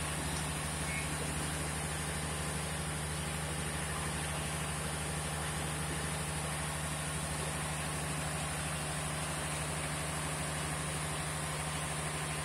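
Sugarcane crushing mill machinery running steadily: a continuous low hum with a steady drone and an even mechanical rumble, without change.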